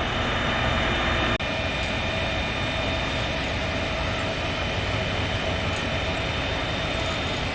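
Heavy machinery engine running with a steady drone, briefly cut off about a second and a half in.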